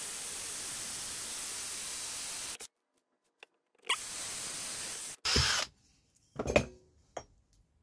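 Cordless drill boring out the rivet in an aluminium seat-box leg, heard sped up as a steady hiss-like whirr that cuts off after about two and a half seconds. Two shorter bursts of the same sound follow after a gap of silence, then a couple of knocks near the end.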